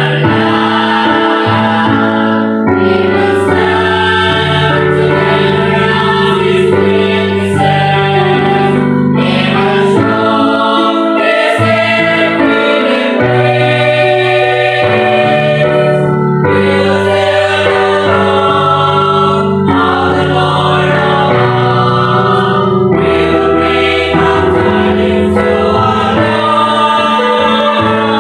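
Mixed church choir singing a hymn in three-part harmony (soprano, alto, tenor), sustained chords moving together without a break.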